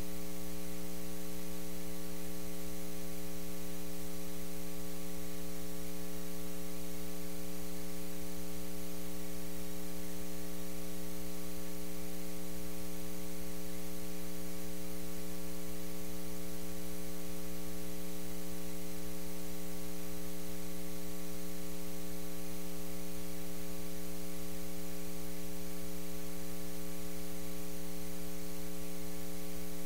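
Steady electrical mains hum in the audio feed: a constant buzzing tone with a stack of overtones over faint hiss, unchanging throughout. No voices or other sounds come through.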